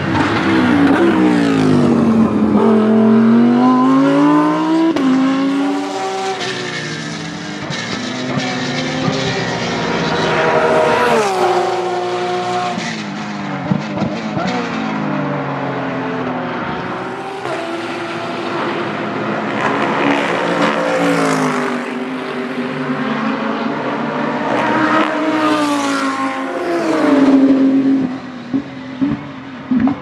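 GT3 race car engines, among them Porsche 911 GT3 R flat-sixes, accelerating hard out of a corner. The pitch climbs and drops back repeatedly as each car shifts up through the gears, and several cars pass one after another. Near the end come a few sharp cracks.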